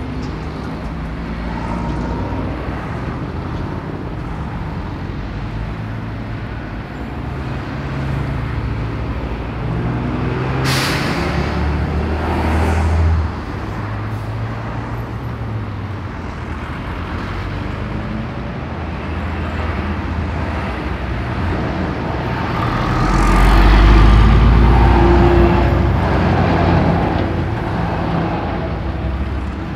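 Road traffic passing close by: car and lorry engines with tyre noise. About a third of the way in there is a short, sharp hiss of air, like a lorry's air brakes. About two-thirds through, the deep rumble of a heavy diesel lorry swells to its loudest as it passes.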